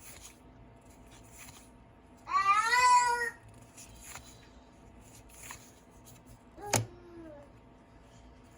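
A domestic cat meows loudly once, for about a second, a couple of seconds in. Near the end a sharp click comes, then a shorter, falling cat call, over faint intermittent rustling.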